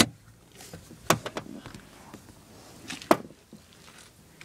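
Sharp knocks and thumps, the loudest about a second in and about three seconds in, with lighter clicks and rustling between.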